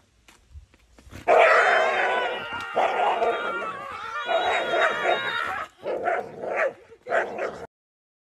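Dog barking, yipping and giving high, wavering play yowls while it lunges at swinging toy swords. The sound runs loud and unbroken from about a second in, then comes in two shorter bursts near the end.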